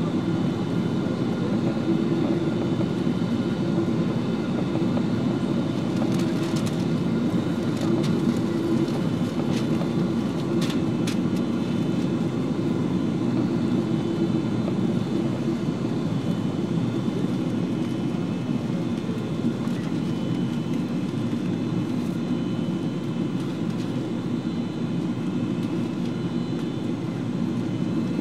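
Steady in-flight cabin noise of a Boeing 777-200 with Rolls-Royce Trent 800 engines: a dense low rush of airflow and engine noise, with a few thin steady whining tones above it.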